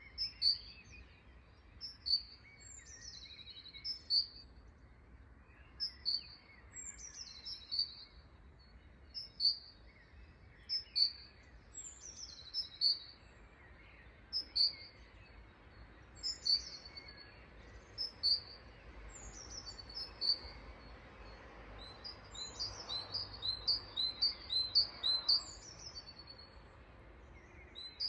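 Songbird chirping: a short high phrase, a falling note followed by quick chirps, repeated every second or two, with a faster run of chirps near the end. A faint, steady background hum sits underneath.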